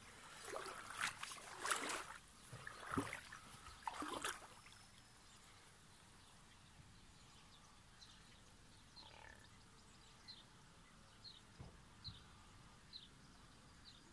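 Pigs grunting and squealing in irregular calls for the first four seconds or so, then faint bird chirps.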